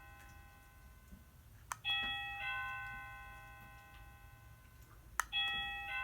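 Two-note ding-dong doorbell chime rung twice, about two seconds in and again about five and a half seconds in. Each chime is a higher note followed by a lower one that rings on and slowly fades, with a sharp click just before it.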